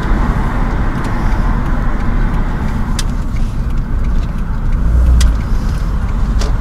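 Road and engine rumble heard inside a moving car's cabin, steady and low, with a few light clicks.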